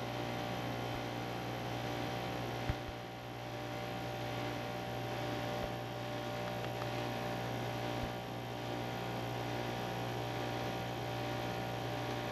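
R-410A air-conditioning condensing unit running with a steady hum, its compressor pulling in refrigerant while the system is still undercharged. A light knock about three seconds in.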